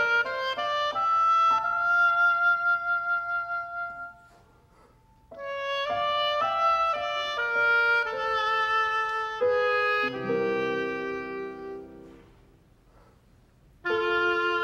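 Oboe and Yamaha grand piano playing a slow, lyrical classical phrase with long held notes. The music breaks off twice into a short pause, about four seconds in and again about twelve seconds in.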